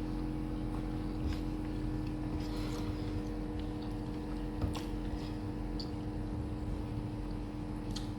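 A steady low hum with a constant tone, holding an even level throughout, with a few faint light clicks over it.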